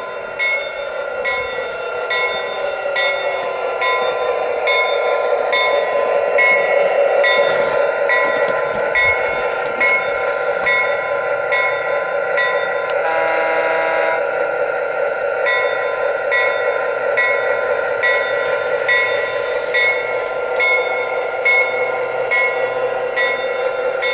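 Lionel LionChief RS3 model diesel locomotive's onboard sound: a steady diesel hum with the locomotive bell ringing about once every 0.7 s. There is a short horn blast about halfway through.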